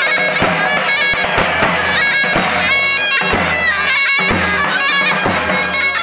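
Davul and zurna playing dance music: the shrill double-reed zurna carries a wavering melody while the large two-headed davul is struck in an uneven rhythm with its heavy mallet and thin stick.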